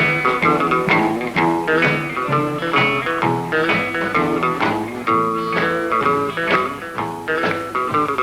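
Instrumental country music on guitars: quick picked guitar runs over a steady rhythm accompaniment, with no singing.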